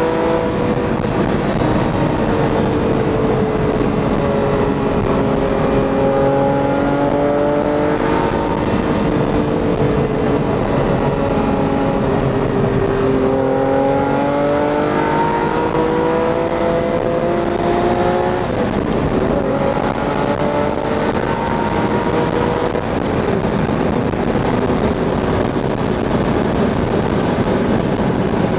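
Ferrari Testarossa's flat-twelve engine with a Fuchs aftermarket exhaust, heard from inside the cabin while driving. Its pitch sinks gradually through the first half as the car slows, then climbs again from about halfway as it picks up speed.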